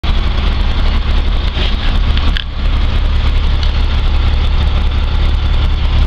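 1994 Blue Bird school bus engine idling steadily, heard from the driver's seat inside the cab, with a deep, even low-end hum.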